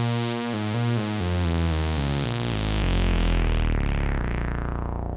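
Electronic synthesizer music, a short title jingle whose sustained notes step downward in pitch, thinning out near the end.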